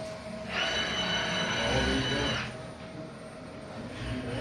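Motor whine from a soldering robot: a steady high whine of several tones lasting about two seconds, starting and stopping sharply, over a constant machine hum.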